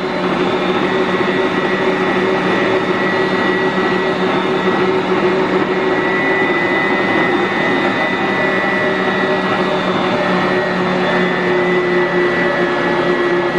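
Electric kitchen mixer running steadily at one speed, a constant motor whir and hum.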